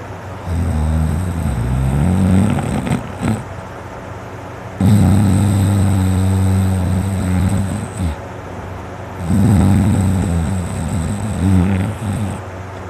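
A man snoring deeply: three long, rough snores, each lasting about three seconds and coming about every four and a half seconds.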